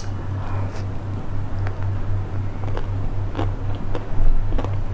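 Close-miked eating sounds: scattered wet mouth clicks and smacks, about eight or nine, as a treat on a stick is bitten and sucked, over a steady low hum.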